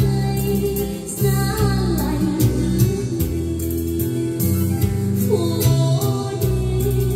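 A song with a singing voice over instrumental backing, played back from a CD in a Sony MXD-D1 CD/MiniDisc deck.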